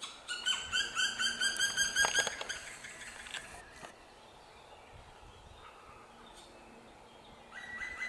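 Black woodpecker giving a fast series of repeated, ringing call notes, about five a second, for roughly two seconds. A new, steadier-pitched call starts near the end.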